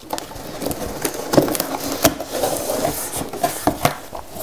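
Cardboard shipping box being opened by hand: irregular scraping, rustling and sharp taps as the top flaps are pulled apart.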